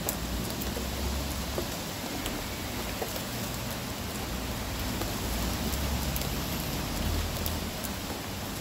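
Steady rain falling, with scattered drops ticking sharply close by and low gusts of wind rumbling on the microphone now and then.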